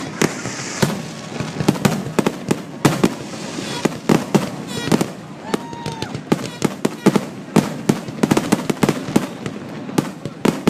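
Fireworks shells bursting in rapid, irregular succession, several sharp bangs a second, in a grand-finale barrage.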